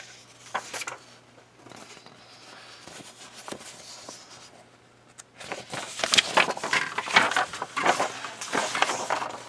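Paper instruction booklet being handled: a few soft taps and rustles at first, then from about five seconds in a run of loud crinkling and rustling as the sheets are opened out and turned.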